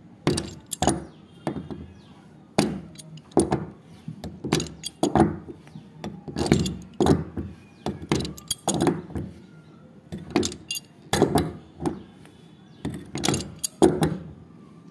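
Steel pipe wrench clacking against the plastic hex nut of a water tank's outlet nipple as the nut is worked round in short turns: a string of sharp knocks and clicks, irregular, about one or two a second.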